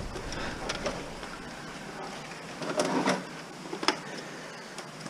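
Gloved hands handling an opened desktop computer tower: soft rustling with a few light clicks and knocks of its metal case and plastic drive bays, a cluster about three seconds in and another near four seconds.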